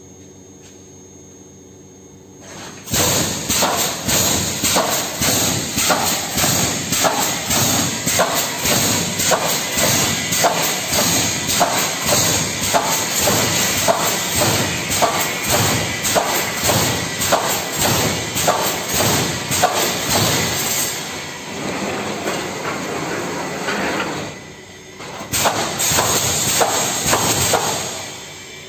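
Pneumatic wire mesh welding machine starting up about three seconds in and running, with a fast, even rhythm of clanking welding strokes over a hiss of compressed air. It quietens and pauses briefly, then runs again before stopping near the end.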